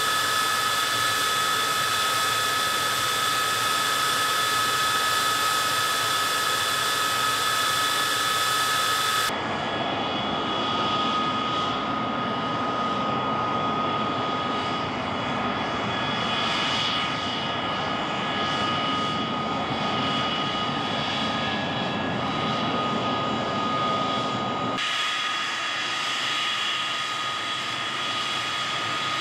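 MiG-23's single turbojet engine running at taxi power, a steady jet rush with a high, constant turbine whine. The sound changes abruptly about a third of the way in, becoming more of a rush with the whine faint, then the whine comes back clearly near the end.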